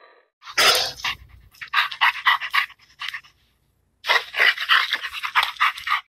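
Dog panting in quick, rapid breaths: the sound of Google's augmented-reality 3D dog. A sharp breath comes about half a second in, then two runs of fast panting with a short pause between them.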